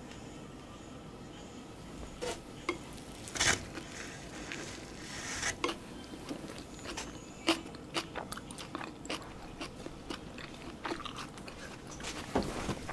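Close-up eating sounds: chewing and mouth smacks on injogogi-bap, North Korean rice wrapped in soy-based artificial meat, dressed with a spicy sauce. Scattered small clicks, with one louder smack about three and a half seconds in.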